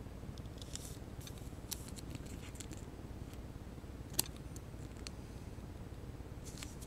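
Faint clicks and rustles of trading cards being handled, with one sharper click about four seconds in, over a low steady hum.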